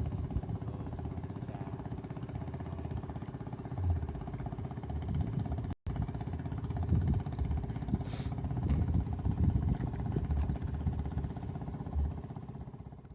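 A small engine running steadily, with a fast even pulse, a constant hum and uneven low rumble. It cuts out for an instant about six seconds in.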